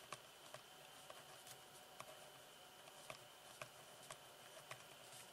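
Faint pen-on-paper writing: soft, irregular ticks and scratches as the pen tip strikes, moves and lifts.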